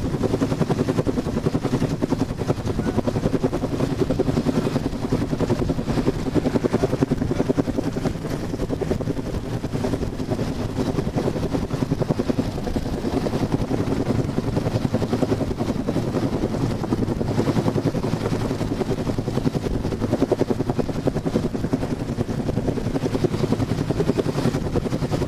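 Search and rescue helicopter hovering close overhead, its rotor beating fast and steady with no letup.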